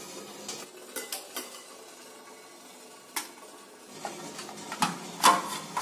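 Metal clinks and knocks of a steel idli plate being lifted out of a stainless steel steamer pot and set down: scattered light taps, then a louder clatter of metal on metal near the end.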